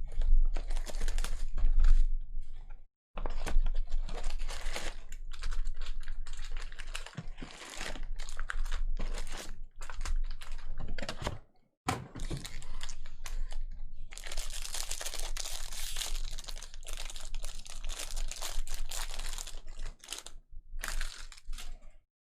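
Baseball card pack wrappers being torn open and crinkled by hand, a busy run of crackling and rustling with a few short pauses.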